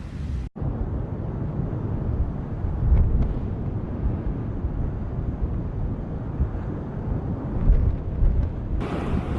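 Continuous low rumbling roar of the erupting Cumbre Vieja volcano, mixed with wind buffeting the microphone, swelling louder a few times. The sound breaks off sharply for an instant about half a second in.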